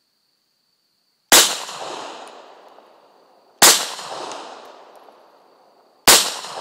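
Three pistol shots from a .40-calibre Glock 27, about two and a half seconds apart, each followed by a long echo dying away.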